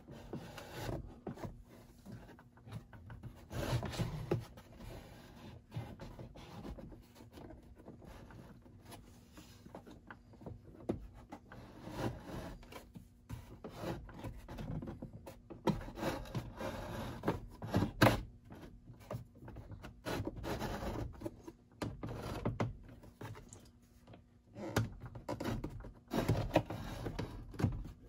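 A new paper-style glove box liner being worked and pushed into a truck's dash opening: irregular rubbing and scraping with scattered knocks as it is moved back and forth, a tight fit.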